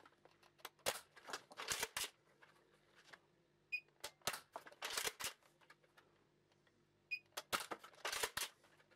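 X-Shot Insanity Berzerko foam dart blaster being primed and fired three times, each shot a quick cluster of plastic clicks and clacks, about three seconds apart. This is a chronograph speed test with Elite darts.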